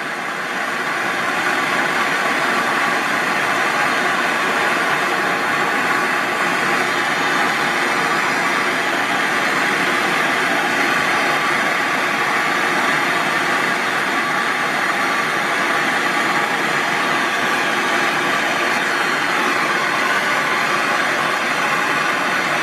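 Propane torch burning with a steady hiss, its flame held on the end of a thin steel strip.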